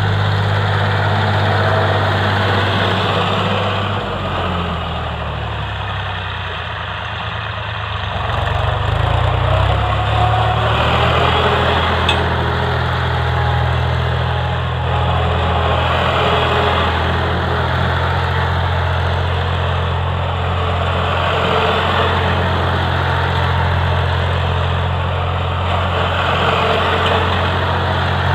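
Diesel tractor engine running steadily as the tractor drives over spread rice straw to thresh it. The engine drops in speed and loudness about four seconds in and picks back up about nine seconds in, and the sound grows louder and softer at intervals as the tractor circles.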